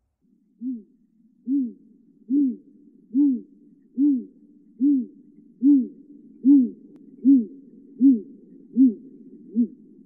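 Great grey owl calling: a long, even series of about twelve deep hoots, a little more than one a second, beginning about half a second in.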